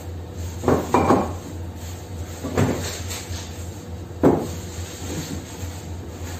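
Gym-equipment parts and cardboard boxes being handled during unpacking, giving short knocks: two close together about a second in, another past two and a half seconds, and the loudest just after four seconds. A steady low hum runs underneath.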